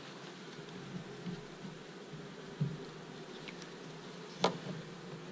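Carniolan honeybees buzzing steadily over an open hive. Two light knocks come about two and a half and four and a half seconds in, as a wooden frame is pushed into the hive box.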